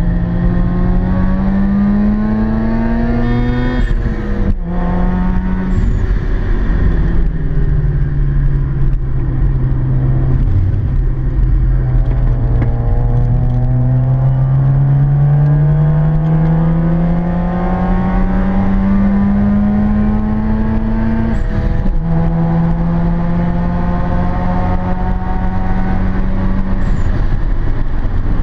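Mazda RX-7 (FC3S) 13B twin-rotor rotary engine heard from inside the cabin on track, its pitch climbing under acceleration and falling off between. It shifts up about four seconds in and again about twenty-one seconds in, where the pitch drops and climbs again.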